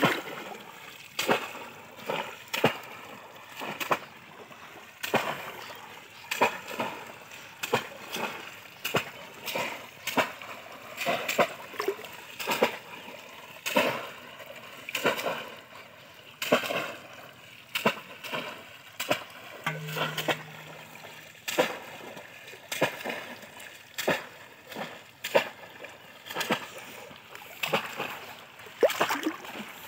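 Bamboo polo fish traps slapped down into shallow pond water again and again by two people, a sharp splash about every second in an uneven rhythm.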